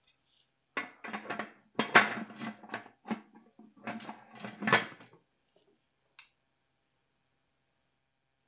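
Aluminum lid of a Presto pressure canner set onto the pot and twisted shut: a run of metal scrapes and clanks with some ringing for about four seconds, loudest near the start and end, then one short click about six seconds in.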